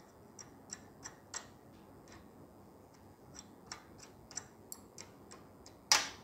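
A dozen or so faint, irregular clicks and ticks as a 3-inch reflector telescope's vertical fine-adjustment rod is fitted and worked at its tripod mount, with one louder knock near the end.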